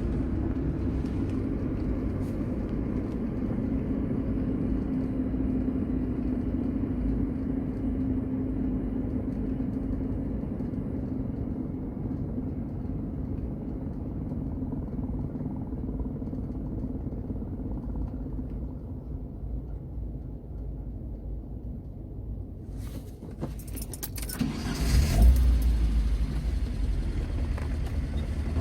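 Alfa Romeo 105's driveline running with a steady low drone and a held hum from the tailshaft, the noise of a bad tailshaft. The hum fades after about twenty seconds. A few clicks follow, then a louder low rumble builds near the end.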